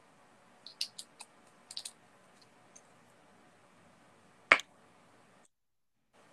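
Light clicks and taps from small objects being handled with the fingers: a quick cluster of clicks in the first two seconds, a couple of fainter ones, then one sharper click about four and a half seconds in.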